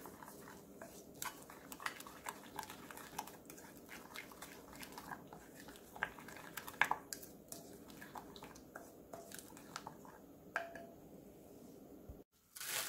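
Wooden spoon stirring a thick, wet chili-powder seasoning paste in a glass bowl: soft sticky squelches and light irregular taps of the spoon against the glass. It stops suddenly near the end.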